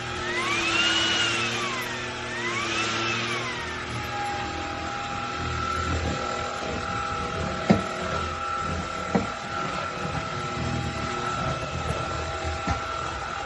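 Cordless stick vacuum cleaner motor running with a high whine, its pitch rising and falling twice in the first few seconds and then holding steady. Two sharp knocks come about halfway through.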